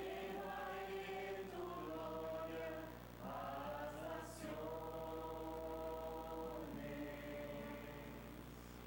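A choir singing slow phrases of long held notes. The last phrase is softer, and a faint steady low hum runs underneath.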